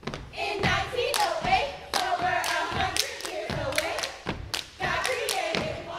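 Step team stepping: hard foot stomps and hand claps in a quick, uneven rhythm, with the group chanting together over the top.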